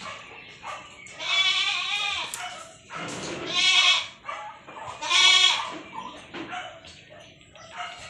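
Goat bleats: three long, quavering calls, each about half a second to a second long, spaced a second or two apart.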